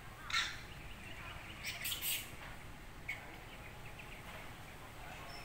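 Birds calling: a few short calls, one near the start, a cluster about two seconds in and another just after three seconds.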